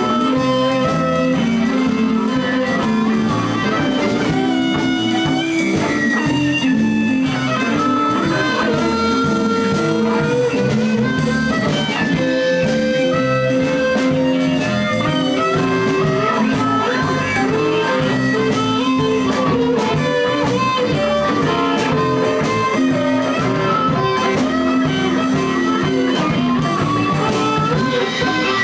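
Live blues band playing an instrumental passage: a guitar lead with held and bending notes over bass and drums.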